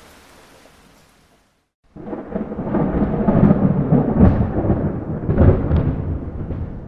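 Light rain fading out, then after a brief gap a loud rolling rumble of thunder with crackling peaks that slowly dies away.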